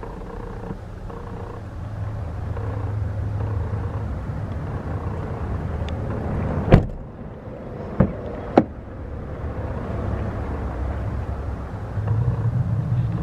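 Chevrolet Silverado 2500HD pickup engine idling steadily. A sharp thump comes about seven seconds in, and two lighter clicks follow over the next two seconds.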